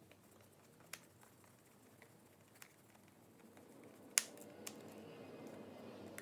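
A few scattered sharp clicks and taps, the loudest about four seconds in, followed by a faint low rustle.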